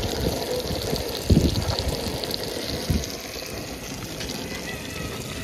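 Masala-coated fish pieces frying in hot oil in a steel pan on a portable gas stove: a steady sizzle with fine crackles. A couple of low thumps, the loudest about a second in.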